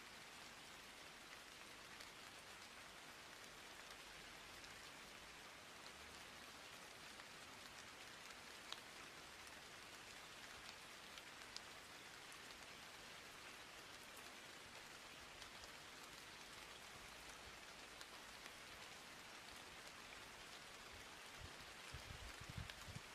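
Near silence: a faint, steady hiss with scattered small clicks, and a few faint low thumps near the end.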